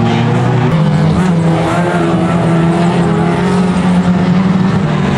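Engines of several street banger race cars running at once around the track, a steady loud drone whose pitch rises and falls as drivers rev and lift off.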